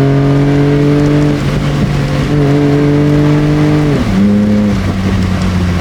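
Nissan Skyline R34 engine running through a Tomei EXpreme Ti titanium exhaust, holding a steady note; about four seconds in the pitch falls sharply as the revs drop, then holds steady at the lower note.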